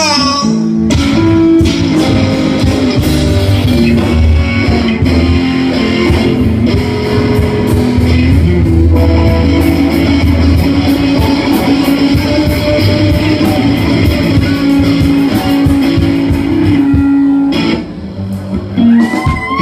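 Live blues band playing an instrumental passage: electric guitars over bass guitar and drums. The playing thins out and drops in level near the end.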